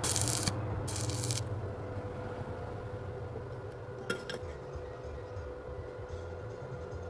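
Stick-welding arc: two short bursts of hissing, crackling arc, each about half a second, as a bolt is tack-welded to a small steel plate. A single metallic clink follows about four seconds in, over a steady low hum.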